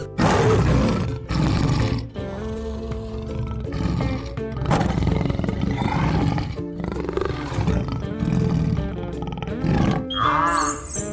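Loud, rough animal roars over steady background music. Near the end a different, higher call with quickly repeated arching notes comes in.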